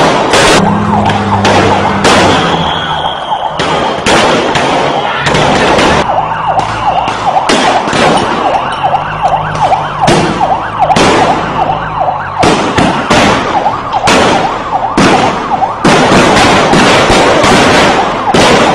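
Repeated loud bangs of gunfire from riot police weapons, with a siren wavering over them.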